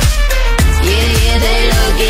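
Pop/R&B song with a heavy bass line and a steady beat.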